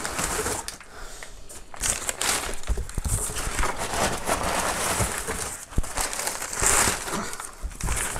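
Brown kraft packing paper crinkling and rustling in irregular crackles as it is pulled out of a cardboard box.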